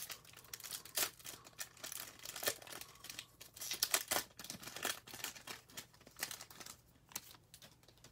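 A foil-lined Bowman baseball card pack wrapper being torn open and crinkled by hand: dense, irregular crackling that thins out near the end as the cards come out.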